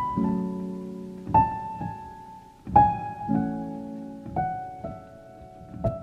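Slow background piano music: a melody of single notes stepping downward, a new note about every second and a half, each held over a soft chord.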